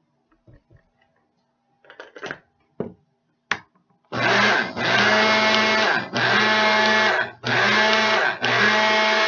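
Small electric blender grinding granulated sugar and cornstarch into powdered sugar. A few light knocks come first; about four seconds in the motor starts and runs in pulses with brief breaks.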